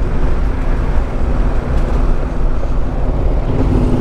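Yamaha Ténéré 700's parallel-twin engine running under way on a dirt track, mixed with wind buffeting the microphone. A steadier engine tone comes through more clearly near the end.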